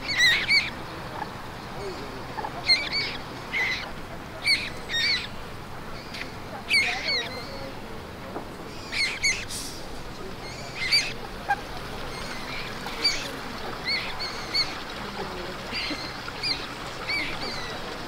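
Common moorhen chicks peeping: short high-pitched calls, often two or three in quick succession, repeated every second or two.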